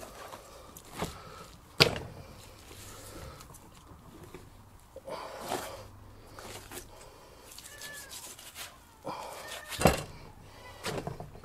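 Knife cutting a young lamb carcass on a plastic cutting board as a shoulder is separated: quiet slicing and rubbing, with a few sharp knocks, the loudest about ten seconds in.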